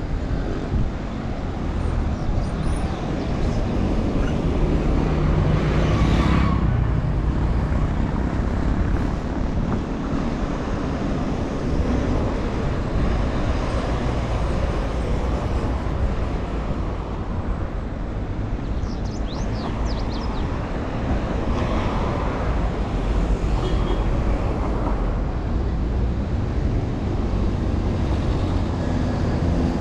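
Road traffic on a city street: a steady rumble of car engines and tyres, with vehicles going by, louder about six seconds in and again around twenty-two seconds.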